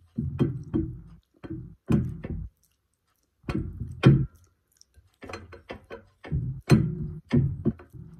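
Close-miked wet mouth sounds of fingers being licked and sucked clean of curry: a string of short smacks with brief pauses, along with fingers swiping through the sauce in a ceramic bowl.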